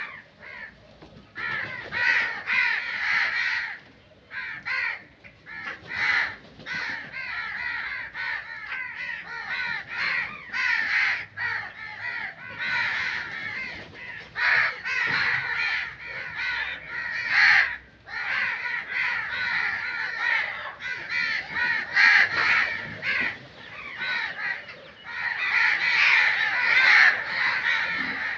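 A flock of crows cawing, many harsh calls overlapping almost without a break.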